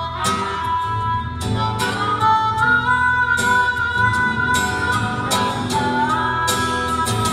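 Acoustic guitar strummed in a steady rhythm, with a harmonica playing long held melody notes over it that step up and down in pitch.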